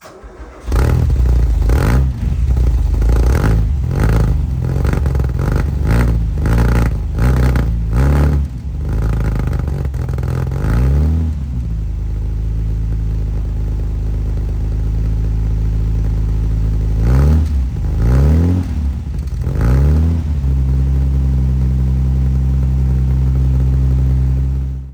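Austin Healey 3000 MkIII BJ8's straight-six engine being revved in repeated quick throttle blips, then settling to a steady idle about eleven seconds in. A few more blips come between about seventeen and twenty seconds, and then it idles again until the sound cuts off.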